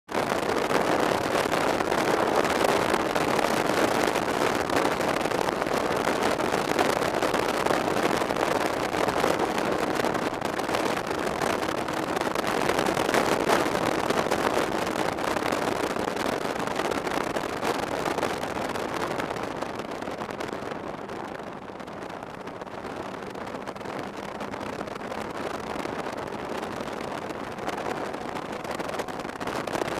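Snowmobile running at speed along a groomed snow trail, its engine and track making a steady drone mixed with wind noise on the microphone. It eases off a little about two-thirds of the way through, then picks back up.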